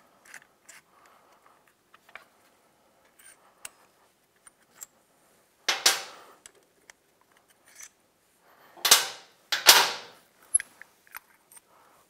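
Faint clicks of a small ratchet and socket turning out the brake caliper pins. About six seconds in the loose pins clatter down on a metal bench. Near the end there are two louder metal clatters as the brake pads come out of the caliper.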